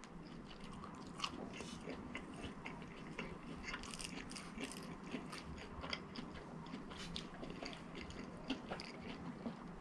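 Close-miked chewing and biting of fast food: a string of faint crunches and small mouth clicks, irregular and scattered throughout.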